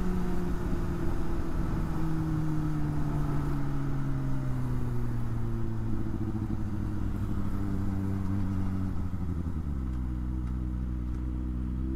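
Kawasaki Ninja ZX-25R's 250 cc inline-four engine running while riding. Its note falls slowly in pitch, then shifts about ten seconds in and begins to climb again.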